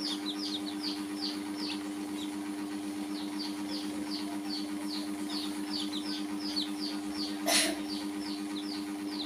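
Domestic chicks peeping: a rapid string of short, high, falling chirps, several a second, with a brief lull about two seconds in. A steady low hum runs underneath, and a short scuffing noise stands out about seven and a half seconds in.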